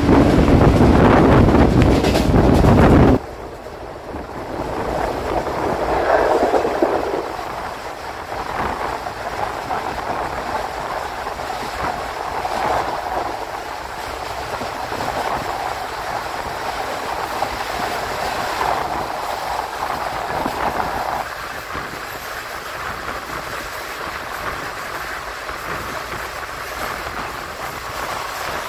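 Running noise of a moving ICF passenger coach. It is loud for about the first three seconds, then drops suddenly to a quieter, steady running sound.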